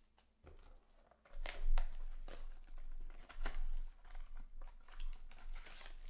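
Clear plastic shrink wrap crinkling and tearing as hands strip it off a small cardboard box of baseball cards, in irregular crackles starting about a second in.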